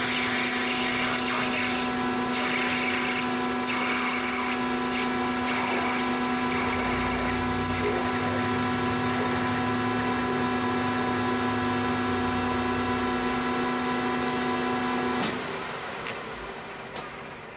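Small metal lathe running at a steady hum while turning a brass piece; about 15 seconds in the motor is switched off and the hum stops suddenly, leaving the machine spinning down.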